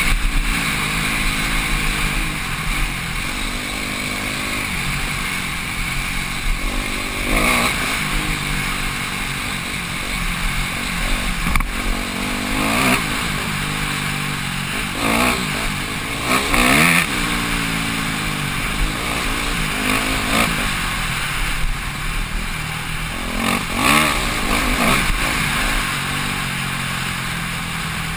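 Dirt bike engine heard from the rider's helmet camera, pitch rising and falling continuously as the throttle is worked on a trail, with several sharp bursts of throttle along the way. A low rumble of wind on the microphone runs underneath.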